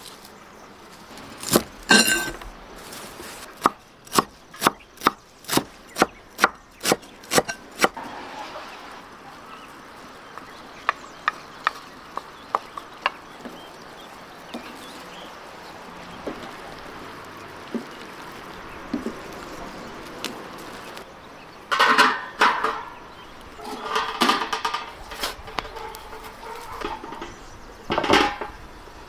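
Knife chopping on a wooden board, a run of sharp cuts about two a second for a few seconds. Later a wooden spoon stirs and scrapes rice and chickpeas in a metal pan, and near the end a pan and its lid clank several times.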